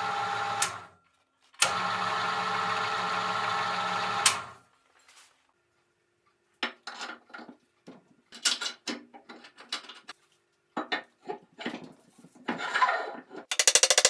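NGF-110 horizontal milling machine running with a steady hum, in two stretches that start and stop abruptly. Later comes a string of irregular short knocks and clatters.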